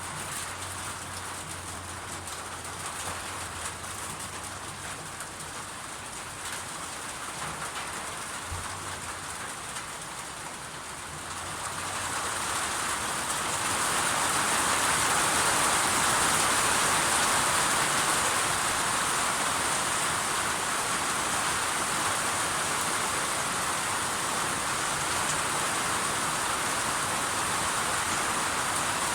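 Steady rain falling, turning heavier and louder about twelve seconds in and then holding steady.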